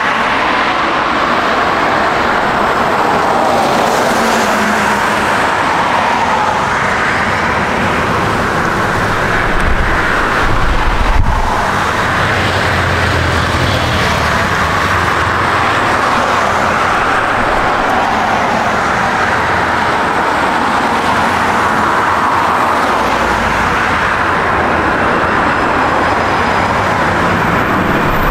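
Boeing 787-9 airliner's twin jet engines on landing approach: a loud, steady roar, with a deeper rumble swelling through the middle.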